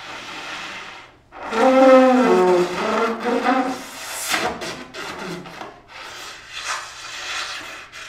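Breathy, rasping air blown through a brass horn whose two bells are packed with daisies. About a second and a half in, a pitched note sounds for about two seconds, sliding downward, before the playing goes back to breathy, hissing air with a sharp hiss about four seconds in.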